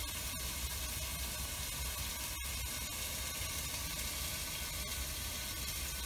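Steady sizzling hiss from food cooking under the domed lid of a portable gas table grill, with a low rumble underneath.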